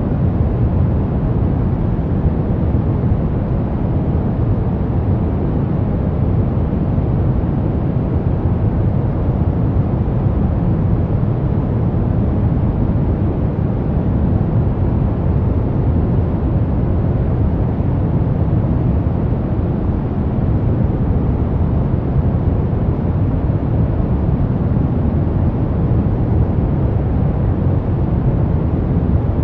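Brown noise: a steady, unchanging deep rumbling hiss, its energy heaviest in the bass and fading toward the treble.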